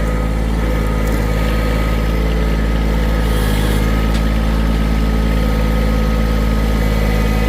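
John Deere 1023E compact tractor's three-cylinder diesel engine running at a steady speed.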